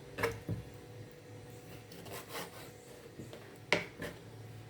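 Knife cutting off chicken wing tips on a cutting board: a few sharp knocks with some scraping between them, the loudest knock near the end.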